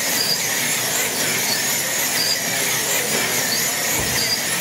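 Wing slot cars racing on a multi-lane track. Their electric motors whine high, the pitch rising and falling again and again as the cars speed up and brake, over a steady hiss.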